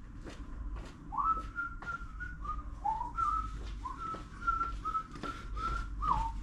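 A man whistling a short tune idly, a string of gliding notes starting about a second in, with a few light clicks.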